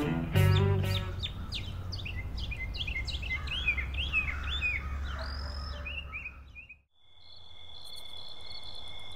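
Small birds chirping over an outdoor ambience: many quick falling chirps for about six seconds, then an abrupt cut-off. After the cut comes a steady, high electronic tone with faint ticking.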